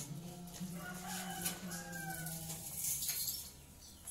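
A chicken clucking in short pitched calls over a steady low hum.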